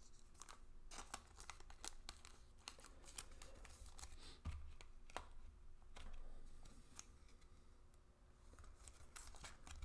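Faint handling of baseball cards: scattered light clicks and rustles of card stock being shifted and set down.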